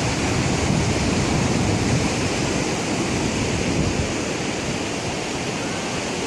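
Ocean surf washing onto a beach, a steady rushing noise that eases off slightly about four seconds in.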